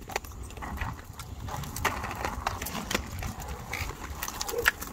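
Quad roller skate wheels rolling over a concrete sidewalk: a steady low rumble with irregular clacks and knocks.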